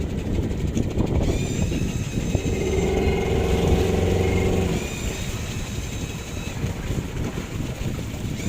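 A motor engine running with a steady low rumble, growing louder and more clearly pitched for a couple of seconds in the middle, then easing back.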